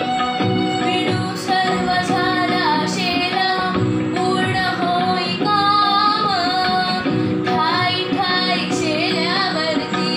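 A young girl singing a Marathi film song solo, in a melody that bends and wavers, over instrumental accompaniment with held tones and occasional percussion strokes.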